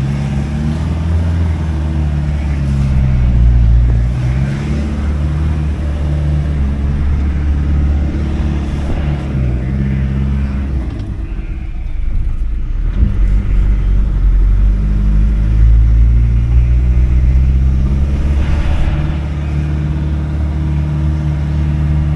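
Farm vehicle engine revving repeatedly under load while trying to drive out of a mud bog, its pitch rising and falling through gear changes. About halfway through it eases off briefly, then builds again.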